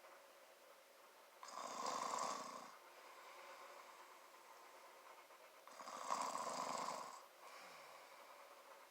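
A man snoring in his sleep: two long snores about four seconds apart, with faint quiet between them.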